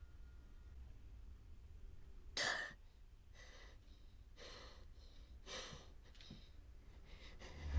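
A person panting, short heavy breaths coming about once a second, the loudest about two and a half seconds in, over a low steady hum.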